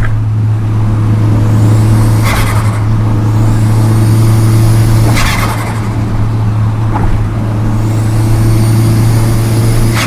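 Volkswagen Golf GTI Mk4's 1.8 20-valve turbocharged four-cylinder engine pulling hard, a steady engine drone under a turbo whistle that rises three times. Each pull ends in a short burst of turbo flutter as the throttle closes.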